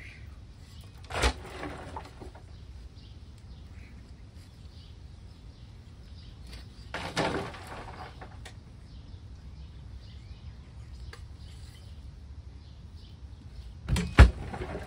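Shovelfuls of earth dropped into a grave, each landing as a short crash of soil: once about a second in, again about seven seconds in, and a louder double one near the end.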